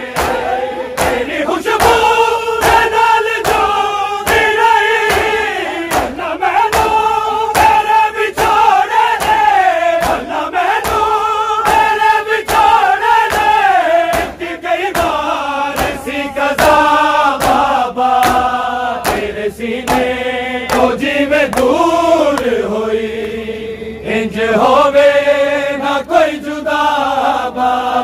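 A chorus of men chanting a Punjabi noha, a mourning lament, in long sung lines. A crowd beats their chests in matam, the slaps striking sharply in a steady rhythm under the singing.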